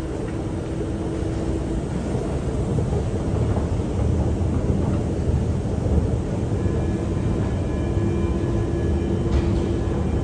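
Metro station escalator running: a steady low mechanical rumble with a faint hum, and faint higher whining tones joining about seven seconds in.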